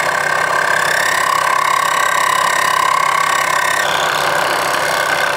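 Milling machine spindle turning a Forstner bit that is slowly boring a radiused cut into clear PVC pipe, a steady whine with a thin, high cutting tone whose pitch shifts slightly a couple of times.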